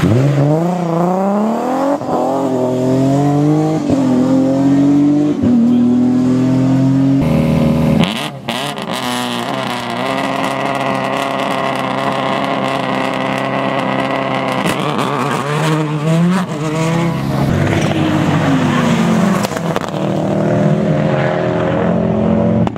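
Rally car engines at full throttle, revving up through the gears with repeated rises and drops in pitch at each shift. The sound changes abruptly a few times as one car gives way to another.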